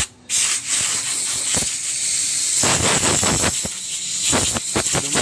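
Compressed-air blow gun hissing as it blows dust out of a Bajaj RE's pleated paper air filter element. There is a short blast at the start, then steady blowing that rises and falls in strength.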